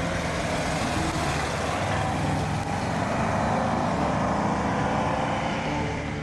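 A vintage Jowett car with a horizontally opposed petrol engine driving past on the road, its engine note rising and then falling away as it goes by.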